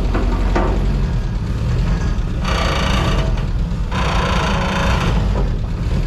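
Old car's engine running with a steady low drone, running a little rich by the owner's account. Twice a louder rushing noise swells over it for a second or so, about two and a half and four seconds in.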